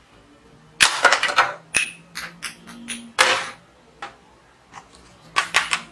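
Plastic toy guns being picked up and set down on a glass-topped table: a run of sharp clicks and clatters, densest about a second in and with another strong knock around three seconds.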